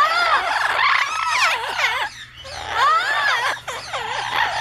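Many parrots squawking and calling at once, a loud overlapping chorus of rising and falling cries, easing briefly about two seconds in.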